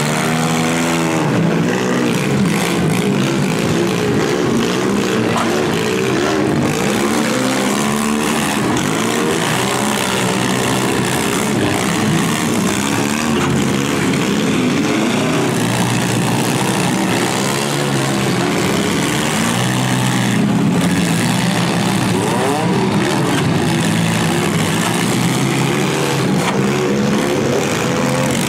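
Several demolition derby cars' engines running and revving hard together, rising and falling in pitch as the cars ram one another, with a few sharp bangs of metal on metal from the collisions.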